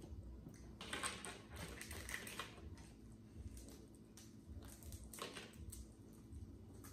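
Cooked crawfish shells being cracked and peeled by hand: irregular crackling clicks.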